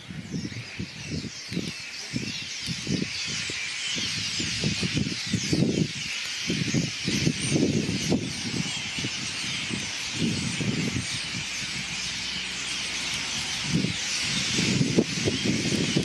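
A large flock of European starlings chattering, squeaking and whistling all at once in a dense, unbroken chorus. Low, gusty rumbles come and go underneath.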